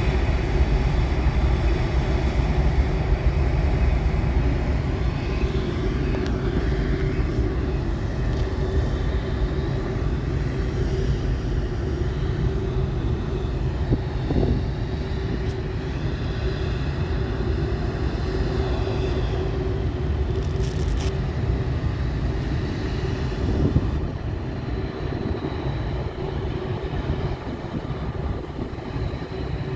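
Airbus A380's four jet engines running steadily at low thrust as the airliner taxis past: a dense rumble with a held whine, easing off a little near the end as it moves away.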